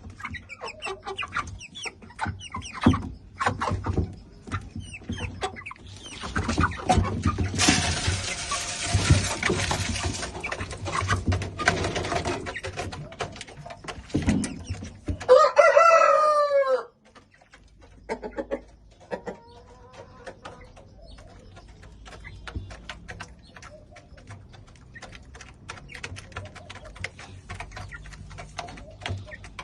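A flock of chickens clucking and calling, with scattered pecking and scratching clicks. About halfway through a rooster crows loudly, the loudest sound here, and the crow cuts off suddenly. Earlier there are a few seconds of rushing noise.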